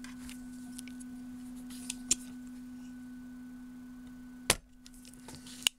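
A steady low hum with a few light clicks, then a sharp snap about four and a half seconds in as a spring-loaded solder sucker fires to pull molten solder out of a capacitor hole in a multi-layer motherboard. Another sharp click comes just before the end.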